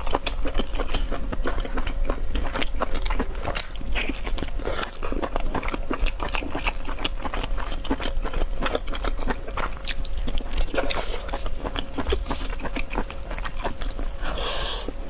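Close-miked eating of spicy cuttlefish noodles: dense, irregular wet chewing and biting clicks, with a longer noisy sound near the end.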